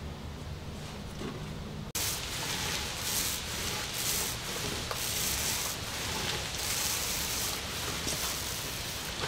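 Hand sanding of a plywood panel with a sanding block: rough, rasping back-and-forth strokes, about one a second, starting about two seconds in. Before that, only a low steady hum.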